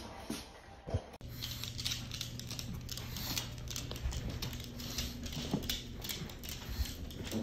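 A pug's claws clicking and tapping irregularly on a hardwood floor as it walks, over a steady low hum.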